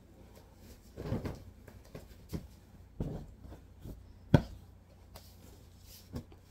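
Pillows and bedding being set down and tossed onto a mattress close by: a series of soft thumps with fabric rustling, the sharpest thump a little past the middle.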